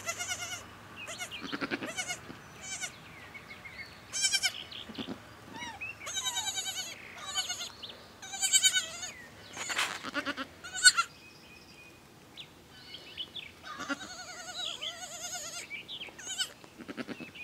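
Newborn Nigerian dwarf goat kid bleating over and over in short, high, wavering cries. There is a brief, much louder sound about eleven seconds in.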